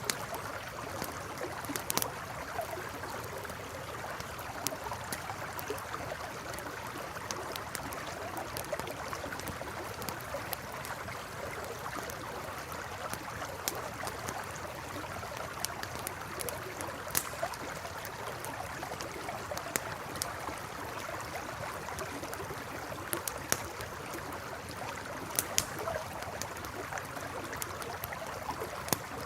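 Campfire crackling with scattered sharp pops over the steady rush of a flowing river.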